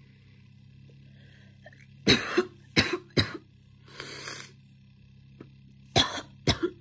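A person's chesty, barking cough: a burst of three sharp coughs about two seconds in, then two more close together near the end.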